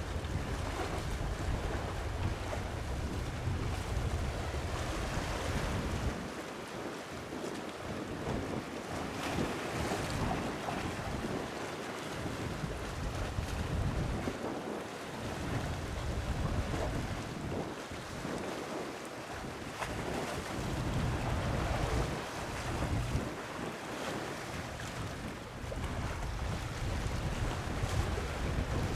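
Wind buffeting the microphone in gusts, with a low rumble that comes and goes, over a steady wash of sea waves.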